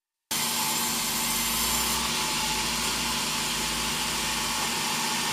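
Large sawmill band saw running steadily, its blade sawing through timber with an even, hissing whine.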